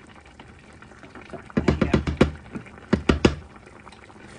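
Wooden spoon knocked against the rim of a metal frying pan in two quick runs of taps, about five and then three, shaking food off the spoon.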